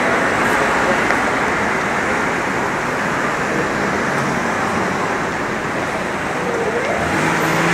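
City street ambience: steady traffic noise from cars on the road beside the sidewalk.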